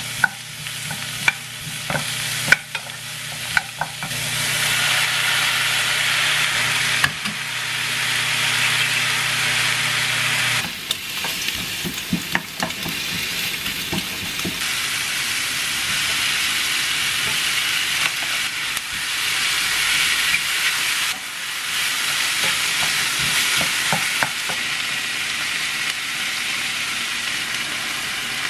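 Onion and zucchini strips sizzling as they are stir-fried in a frying pan, with a wooden spoon tapping and scraping against the pan now and then, the taps busiest in the first few seconds. A low steady hum sits under the sizzle and stops about ten seconds in.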